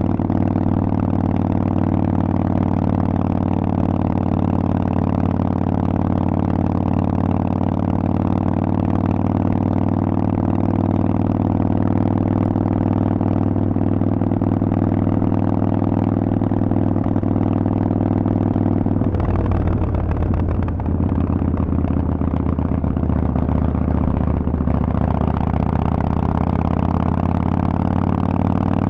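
Harley-Davidson Sportster Forty-Eight's 1200 cc V-twin running loud through Vance & Hines exhaust pipes while the bike is ridden, a steady deep note. About two-thirds of the way through the note breaks briefly, then settles at a slightly lower pitch.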